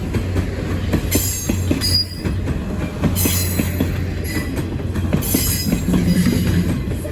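Train rolling past, its wheels clattering fast over the rail, with a steady low drone underneath. Brief high wheel squeals come about a second in, at about three seconds, and again a little after five seconds.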